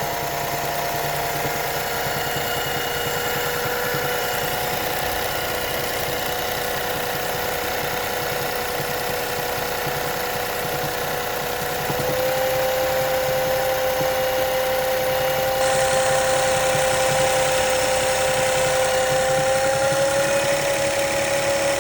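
Volkswagen Gol 1.0 three-cylinder engine idling, with a steady whining tone over the running; about halfway through it gets a little louder and the whine rises slightly in pitch. The owner is unsure whether this noise is a fault or normal for a three-cylinder engine.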